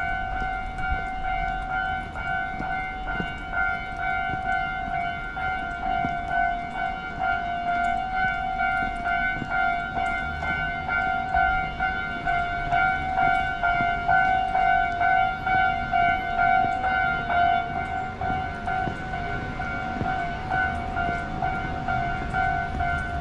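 Japanese railway level-crossing alarm ringing without a break: a high electronic ding repeating quickly enough to sound like one pulsing tone, with faint footsteps and street noise beneath it.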